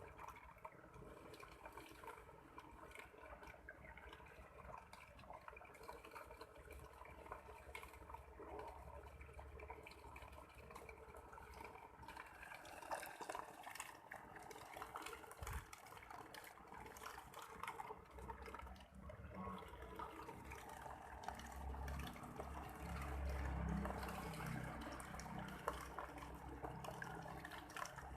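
Water pouring and splashing from a homemade mini water pump driven by a 12-volt DC motor. It is a continuous, fairly faint sound that grows louder in the second half.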